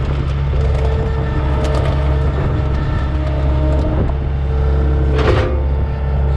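Engine running at a steady low drone, with one short noisy burst about five seconds in.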